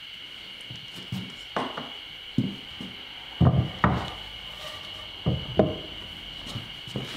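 Cherry boards being handled and set down on wooden sawhorses: a series of wooden knocks and clatters, loudest about three and a half to four seconds in and again near five and a half seconds, over a steady high hum.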